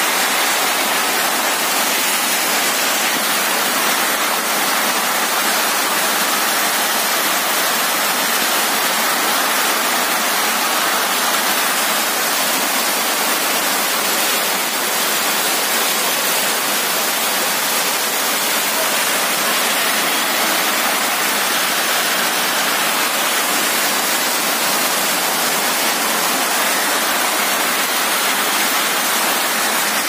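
Heavy hail and rain falling on paving and a flooded road, a loud, dense, steady hiss.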